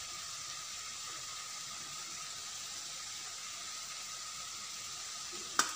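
Broccoli and peas frying gently in a steel kadai, a steady soft sizzling hiss. A single sharp metal clink near the end.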